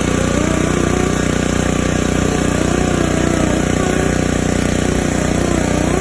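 A small-engine pressure washer running steadily at full throttle.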